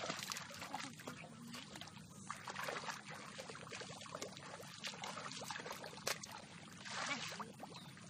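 Shallow muddy water sloshing and splashing as several children wade and stamp through it, with many small irregular splashes.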